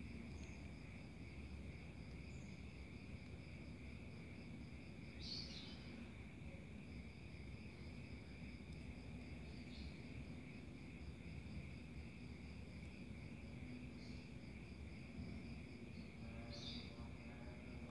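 Crickets and other insects trilling steadily and faintly, with a few short chirps over them.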